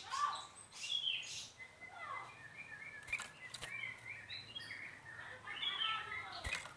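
Sooty-headed bulbul singing: a busy run of short chirps and whistled notes that rise and fall in pitch, with a few sharp clicks in between.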